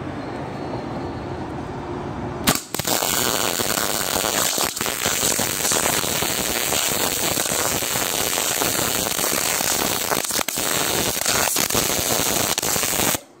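Electric arc welder running a bead on a trailer's hitch coupler: the arc strikes about two and a half seconds in and keeps up a loud, dense crackle with a few brief breaks, then cuts off suddenly just before the end. Before the arc strikes there is only a quieter steady background noise.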